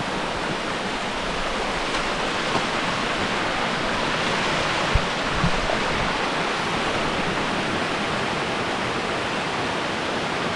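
Steady rush of spring water flowing out of the ground into a small canyon river, with one short knock about halfway through.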